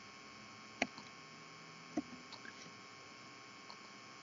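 Steady low electrical mains hum from the recording setup, broken by two short, sharp clicks about a second apart, a computer mouse being clicked.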